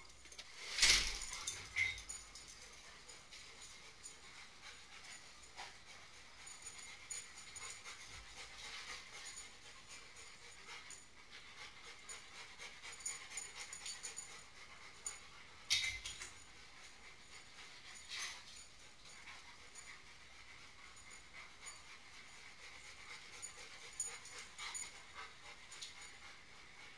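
Husky and malamute dogs moving about, panting, with scattered light clicks and a few sharp knocks, the loudest about a second in and another pair past the middle.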